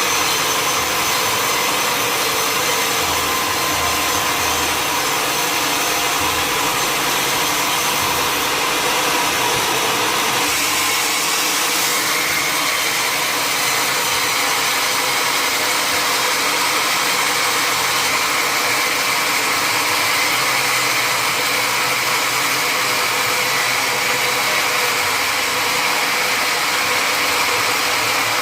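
Sawmill wood-cutting machinery running with a loud, steady mechanical whine and noise, with a slight change in its sound about twelve seconds in.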